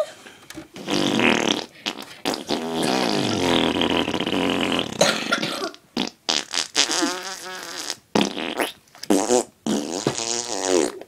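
Fart noises: one long fart of about four seconds that sinks in pitch near its end, then three or four shorter, wavering ones.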